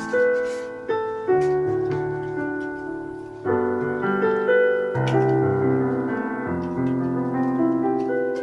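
Piano music: a slow passage of full chords, each struck and left to ring and fade before the next.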